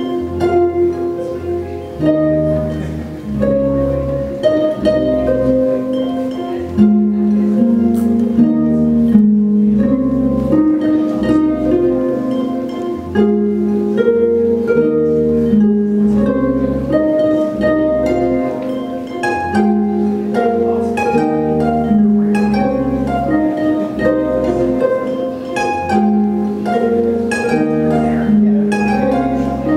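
Lyon and Healy Concert Grand pedal harp played through effects: plucked notes ringing in a flowing melody over long-sustained low notes.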